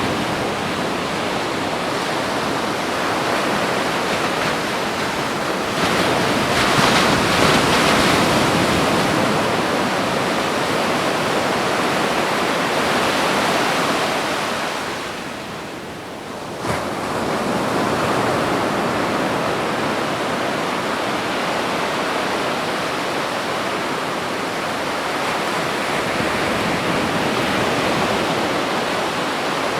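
Ocean waves breaking on a beach in continuous surf. One wave swells loudest about a quarter of the way in, and the surf eases off about halfway before the next wave comes in with a sharp crack.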